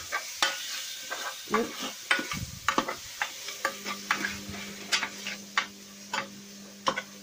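Chicken pieces being stirred in a pot of sizzling tomato-paprika sauce: a utensil clicks and scrapes against the pot over a steady hiss. A low steady hum joins about halfway through.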